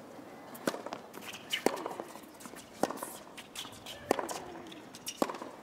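Tennis rally on a hard court: the ball struck by rackets about five times, sharp hits a little over a second apart.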